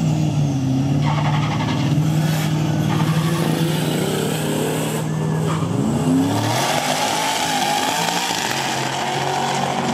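Two Nissan Patrol 4x4 drag racers held at steady revs on the start line, then launching about six seconds in, the engine note climbing as they accelerate away.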